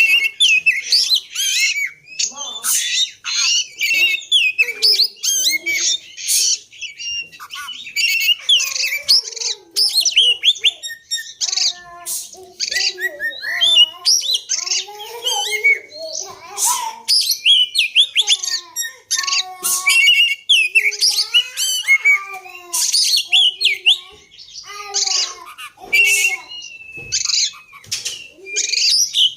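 Oriental magpie-robin (kacer) singing without a break: a long, varied stream of quick whistles, chirps and harsher notes, some high and some lower and warbling. It is played as a lure song to get another magpie-robin to sing.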